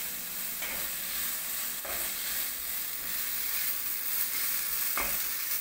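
Chicken and sauce mixture sizzling in a hot pan as it is stirred, a steady frying hiss with a few sharper strokes of the stirring about half a second in, near two seconds and near the end.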